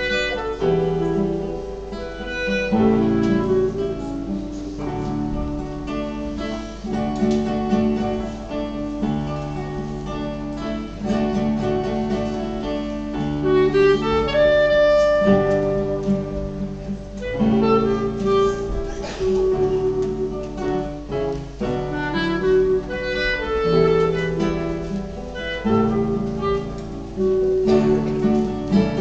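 A school ensemble of classical acoustic guitars plays an instrumental piece, with a wind instrument carrying held notes over the plucked chords.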